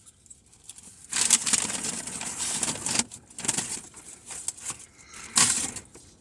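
Paper fast-food bag rustling and crinkling as it is rummaged through, in irregular bursts: a long rustle from about one to three seconds in, then shorter crinkles with a sharp one near the end.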